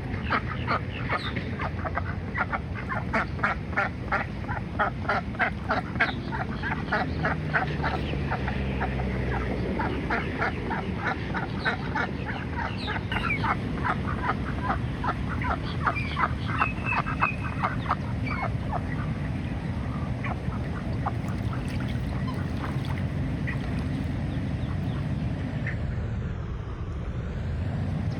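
Female Pekin duck quacking loudly in a rapid, steady run of about three calls a second, thinning to a few scattered quacks after about 18 seconds, over a steady low rumble.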